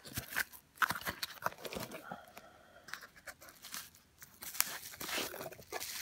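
Hands rummaging through crinkly packing material in a small cardboard box and drawing out a bubble-wrapped package: rustling and crinkling with sharp crackles, dying down for a second or two in the middle.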